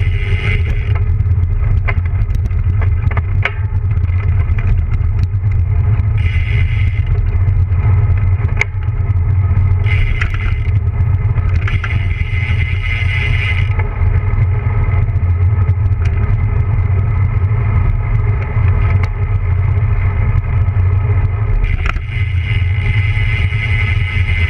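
Wind rushing over the camera microphone and bicycle tyres rumbling on asphalt during a fast road-bike descent: a loud, steady low rumble with scattered clicks. A higher hiss cuts in and out several times.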